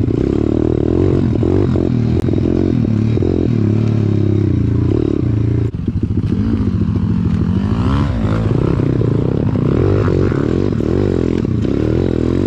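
Small single-cylinder four-stroke pit bike engine running under riding load, its pitch rising and falling repeatedly as the throttle is worked, with a short dip about six seconds in.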